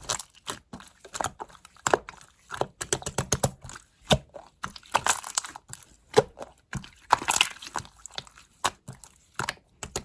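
Clear slime being squished and pressed by hand, giving irregular sticky clicks and small crackling pops from air pockets in the slime.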